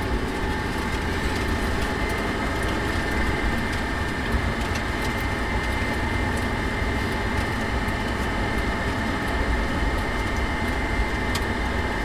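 Lamborghini Gallardo LP560-4's V10 engine running steadily at low speed, heard from inside the cabin with road noise, with no revving.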